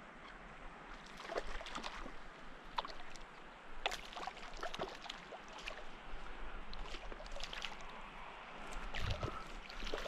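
Irregular small splashes and slaps of water from a hooked golden trout struggling at the lake surface as it is played in.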